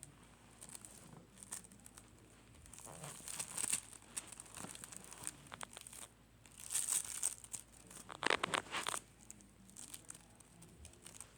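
Slime being squished and worked by hand, making crinkly crackling and popping clicks in irregular bursts, with two louder bursts past the middle.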